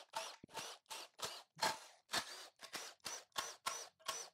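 Milwaukee M18 cordless impact driver run in short trigger bursts, about three a second, spinning out the lower oil pan bolts.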